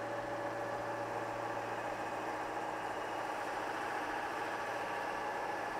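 Large metal lathe spinning at high speed, a steady hum with a few steady tones over it.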